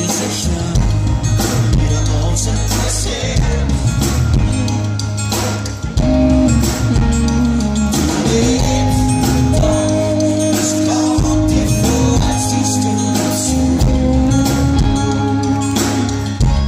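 Live pop-rock band: acoustic guitar, electric guitar, bass and drums, with a male voice singing, played through a loud PA.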